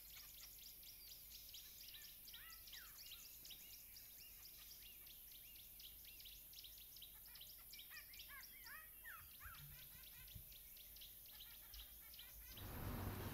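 Faint chorus of many birds chirping rapidly, with a few sliding whistled calls among them. About a second before the end, a louder low rumbling background noise comes in.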